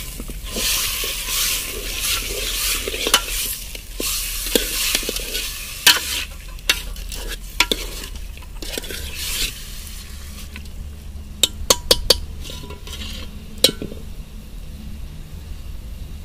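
Chicken pieces sizzling in oil in a metal pot, stirred with a steel ladle that scrapes and clinks against the pot sides. The stirring and the louder sizzle die down after about ten seconds, leaving a softer sizzle and a few clinks.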